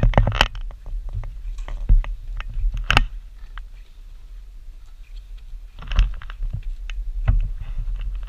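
Bike and rider's gear rattling over a rough, rutted dirt trail: irregular clicks and knocks over a steady low rumble, busiest near the start and again past the middle.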